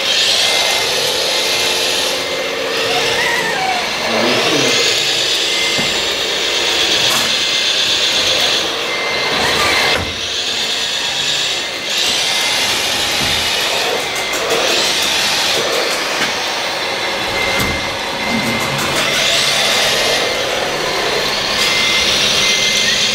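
Radio-controlled scale model of a CAT 963B track loader at work, its motors and gears whining in repeated rises and falls of pitch as it drives and works the bucket through dirt. A thin, high, pulsing beep comes and goes several times.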